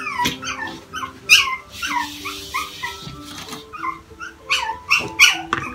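Pomeranian whining: a quick run of short, high-pitched, falling whimpers, about three or four a second.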